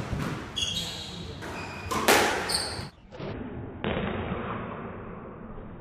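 Squash rally: the ball struck by rackets and smacking off the court walls, several sharp hits with the loudest about two seconds in.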